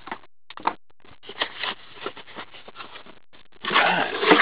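Handling noise of a hockey card box and its metal tin: scattered light clicks and rustles, then a louder stretch of rustling and scraping in the last second.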